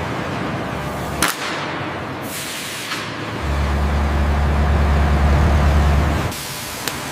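Heavy factory machinery noise: a steady hiss with a single sharp clank about a second in, and a deep machine rumble that starts about three and a half seconds in and stops about three seconds later.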